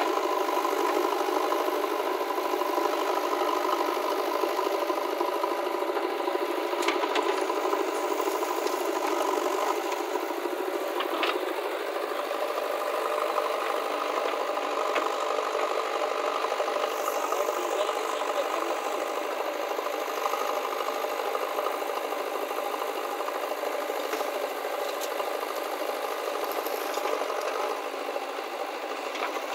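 Diesel engine of a JCB 3DX backhoe loader running steadily under hydraulic load while its backhoe arm digs and swings earth into a tractor trolley, with a rattle. The engine note shifts about a third of the way in, and there are a couple of sharp knocks.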